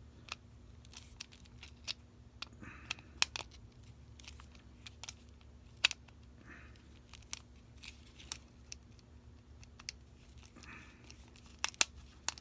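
Scattered light clicks and taps of a 1/4-inch flathead screwdriver's metal tip being fitted into a circuit breaker's terminal screw slot, the sharpest about three and six seconds in and a few more near the end, over a faint steady hum.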